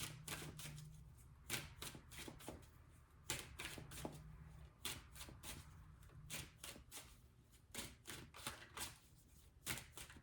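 A tarot deck being shuffled by hand: irregular quick riffles and slaps of the cards, with a low steady hum underneath.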